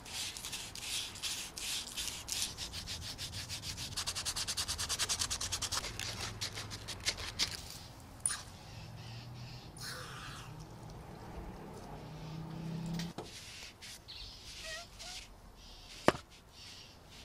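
Sandpaper rubbing a 3D-printed plastic handle in rapid back-and-forth strokes, sanding off the white residue left where acetone glue dried. The strokes stop about seven seconds in, and quieter, scattered rubbing follows, with one sharp click near the end.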